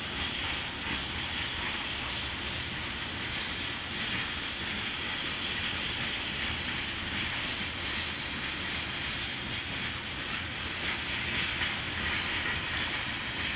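A freight train of covered hopper cars rolling past, giving a steady noise of steel wheels running on the rails.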